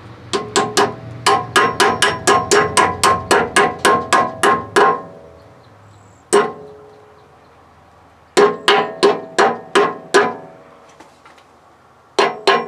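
A hammer tapping a steel tension bushing into a tight-fitting pivot hole in a Case loader arm. Each blow is a sharp metal strike with a short ring. The blows come in quick runs of about four a second, with a pause and a single blow between the runs.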